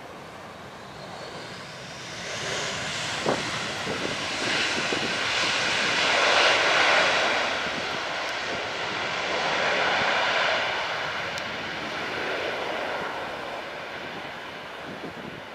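Airbus A320-214's twin CFM56-5B jet engines running loud during the landing rollout, swelling about a second in, peaking twice around the middle and fading toward the end as the airliner slows down the runway.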